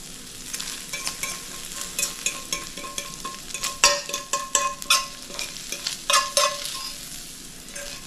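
A metal fork scraping browned sausage crumbles out of a skillet, with repeated scrapes and clinks against the pan; the louder strokes leave the pan ringing briefly.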